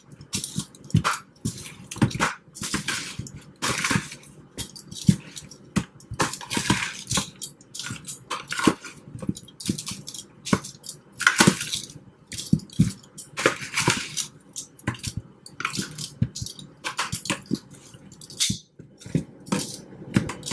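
Metal kitchen tongs turning raw chicken drumsticks in an oily spice marinade in a bowl: irregular wet squelches and clicks of the tongs against the meat and bowl.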